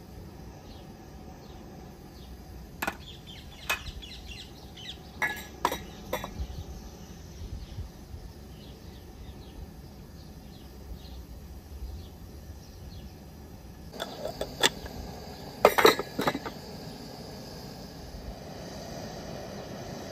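Scattered clinks and knocks of a glass cup and spoon against an enamel cooking pot as ingredients are poured into aşure, a few early on and the loudest cluster about three quarters of the way through. Crickets chirp faintly in the background.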